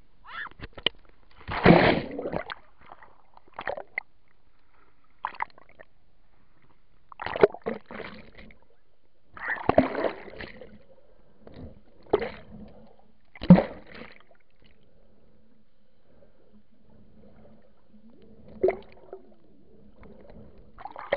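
Lake water splashing and sloshing against a waterproof camera as it dips in and out of the water, in separate bursts a few seconds apart with quiet gaps between.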